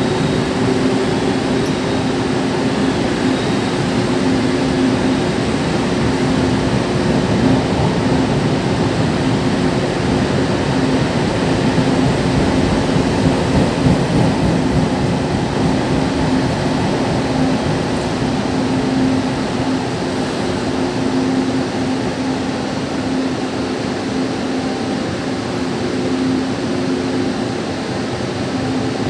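Taiwan Railways Chu-Kuang express passenger carriages rolling past a station platform, a steady running noise of wheels on rails with a steady low hum throughout.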